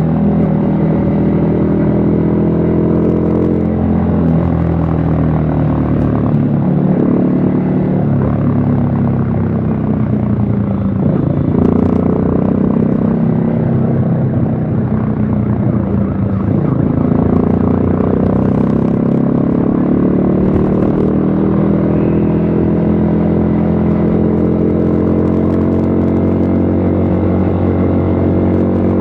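Yamaha XSR155's single-cylinder engine pulling under way, its pitch climbing and easing off several times as the throttle is opened and closed.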